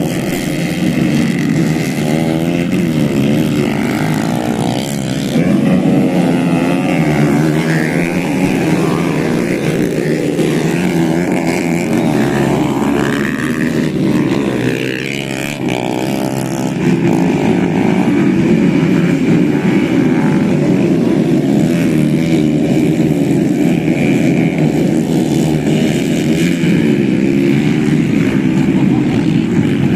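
Modified underbone grasstrack motorcycle engines running and being revved, their pitch rising and falling again and again, with a brief drop in loudness about halfway through.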